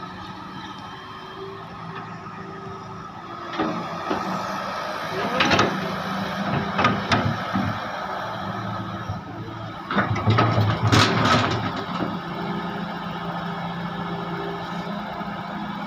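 Heavy excavator's diesel engine running steadily, with several louder bursts of working noise, the loudest about ten to eleven and a half seconds in.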